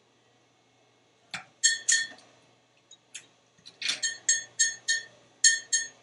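African grey parrot making short, sharp, clinking clicks. A few come about a second and a half in, then a quicker run of about seven near the end, some three to four a second.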